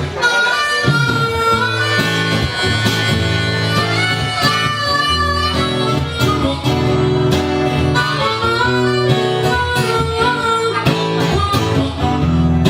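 Harmonica playing a solo break over acoustic guitar accompaniment, with held and bending notes in a live band performance.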